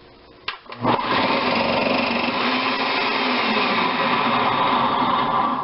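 Veggie Bullet electric food slicer's motor starting up about a second in after a click, then running steadily as a potato is pushed through the slicing blade.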